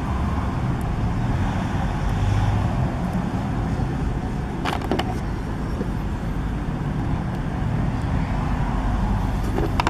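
Steady low rumble of motor traffic, with a few sharp clicks about halfway through and again near the end from plastic toy figures being handled and set upright.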